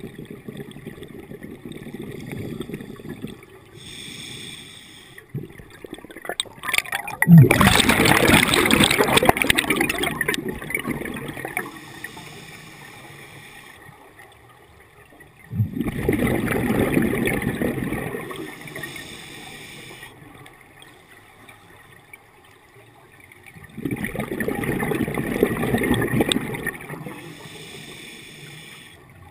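Scuba diver breathing through a regulator underwater: three loud rushes of exhaled bubbles about eight seconds apart, each lasting a few seconds, with a quieter hiss of inhalation through the demand valve between them.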